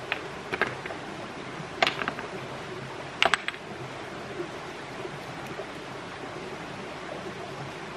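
Steady rush of flowing stream water, with a few short groups of sharp clicks in the first three and a half seconds, the loudest about three seconds in.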